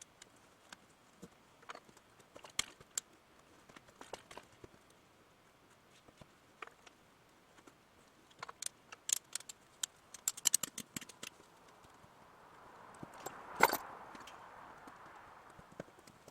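Scattered light clicks and knocks, with a quick run of them about halfway through and one sharper, louder knock near the end, over a soft hiss that swells around it.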